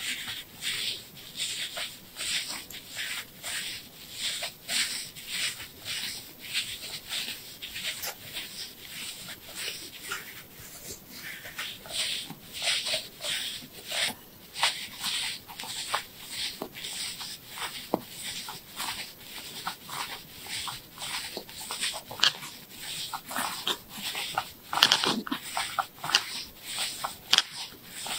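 A thin wooden ear pick scraping and rubbing inside the ear canal, heard very close through a small wireless microphone pressed beside the ear: quick, irregular scratching strokes, a few a second, with a louder run near the end.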